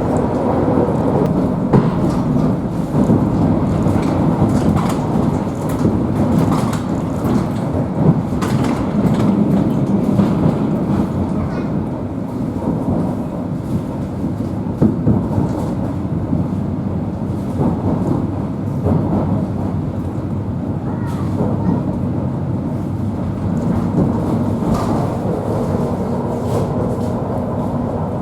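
Electric commuter train running, heard from inside the carriage: a steady rumble with a faint hum and frequent irregular knocks and rattles from the wheels and car body.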